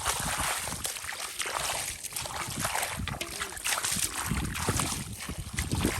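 Shallow muddy water sloshing and splashing in a run of irregular splashes, as hands and legs move through a flooded field to catch fish.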